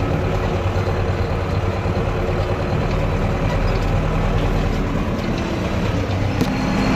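Tractor diesel engine running steadily under load as it tows a meadow harrow across grassland, heard from inside the cab.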